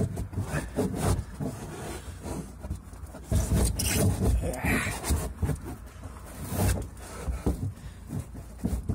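Handling noise in a car trunk: irregular rustling, bumps and scrapes as hands move the carpeted panels to reach the battery, with louder knocks between about three and five seconds in and again near seven seconds.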